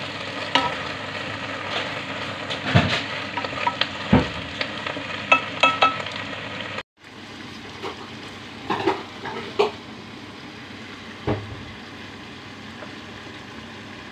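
Lettuce and fried dace stir-frying in a pan: a steady sizzle with clacks and scrapes of a wooden spatula and chopsticks against the pan. About seven seconds in, the sound cuts out for a moment, then the sizzle goes on quieter, with a few more knocks.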